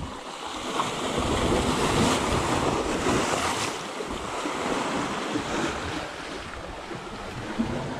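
Sea waves surging and washing, swelling loudest between about one and four seconds in, with wind rumbling on the microphone.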